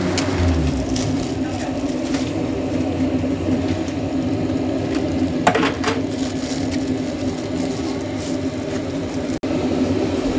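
Steady low mechanical hum of a busy street-food stall, with a short clatter about halfway through.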